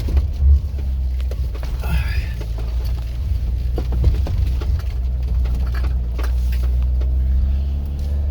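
Jeep Wrangler JL engine running steadily under load as it crawls up a rocky hill, a low drone with scattered short knocks and clicks over it.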